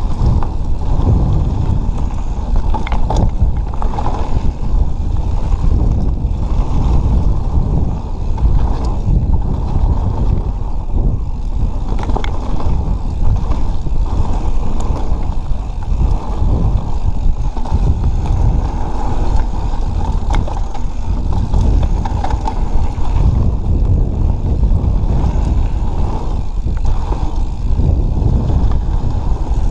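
Mountain bike riding down a dirt singletrack: a steady low rumble of tyre and wind noise on the camera, with the bike rattling over the rough trail and an occasional light click.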